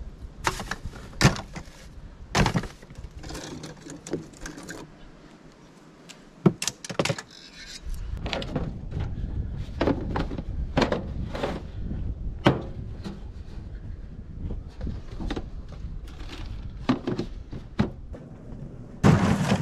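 Handling noise: irregular knocks and clatter of plastic pipe fittings and plastic tubs being picked up and set down, with a steady low rumble setting in about eight seconds in.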